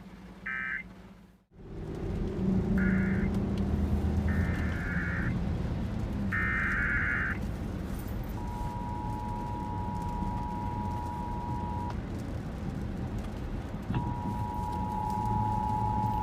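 Emergency Alert System broadcast: three short, raspy digital SAME header bursts, then the two-tone EAS attention signal, a steady pair of pure tones that breaks off briefly and starts again. These announce a new weather warning. A steady low noise runs underneath, and the audio cuts abruptly near the start.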